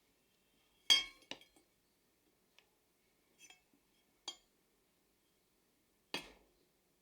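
Small hard metal objects set down or knocked together, with a bright clink: four knocks, the loudest about a second in, a smaller one right after it, another about four seconds in, and a last one near the end.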